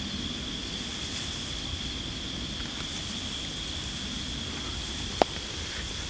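Insects singing in one steady high-pitched drone over a low rumble, with a single sharp click about five seconds in.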